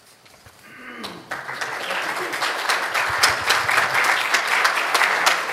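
Audience applauding. The clapping starts about a second in and builds quickly to a steady level.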